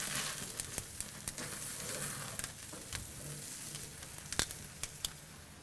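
Chicken pieces sizzling on the hot grates of a gas grill over a medium flame, with fat dripping into the flames and flaring. A steady hiss runs under scattered sharp pops and clicks.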